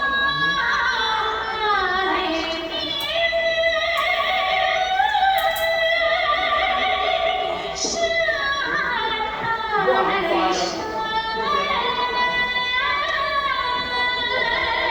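Music: a woman singing a slow melody with vibrato over instrumental accompaniment.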